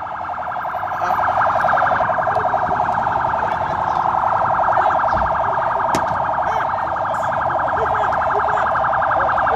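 Electronic alarm sounding continuously as a loud, rapidly pulsing tone.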